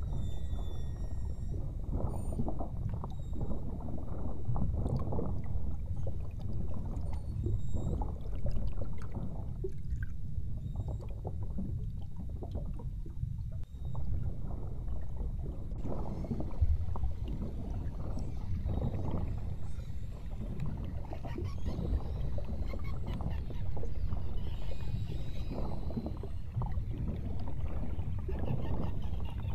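Water lapping and splashing against a boat's hull in irregular surges over a steady low rumble.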